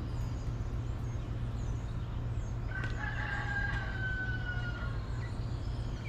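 A rooster crowing once, about three seconds in, as one long call lasting around two seconds that falls slightly at the end. Small birds chirp faintly over a steady low background noise.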